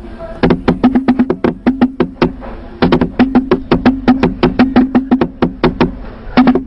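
Percussive theme music of a TV news programme: fast, even percussion hits, about five a second, over a low held note.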